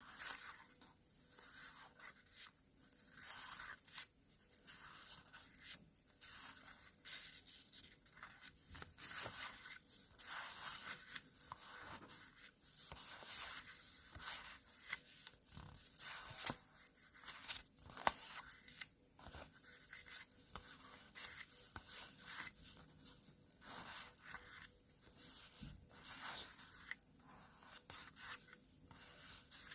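Stickers being peeled off their backing paper and handled: an irregular run of short, crackly tearing and rustling sounds, with one sharp tap about two-thirds of the way through.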